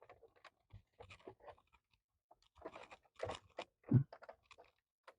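Faint, irregular clicks and scrapes of hands and tools working on computer parts, with a few louder clicks about three to four seconds in.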